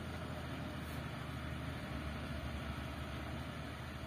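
Tanker truck's engine running as it drives away, a steady low rumble that slowly fades.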